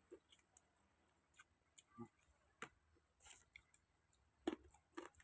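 Faint, scattered clicks and small taps, about eight of them at uneven intervals, the loudest a sharper knock about four and a half seconds in.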